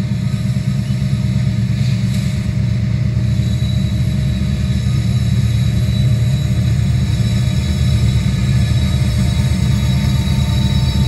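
Low, steady diesel rumble heard from inside a car, growing a little louder: an approaching Union Pacific freight train's diesel locomotives.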